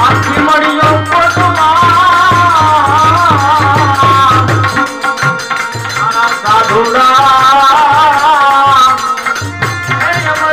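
Bhajan: a man singing a wavering melody over a harmonium and tabla. The tabla's bass strokes stop about halfway through and come back near the end.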